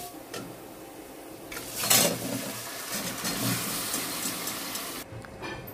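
Cooked chicken and gravy poured from a pressure cooker pot into a hot steel wok: a loud rush of food and liquid hitting the pan about two seconds in, followed by a steady hiss that cuts off abruptly near the end.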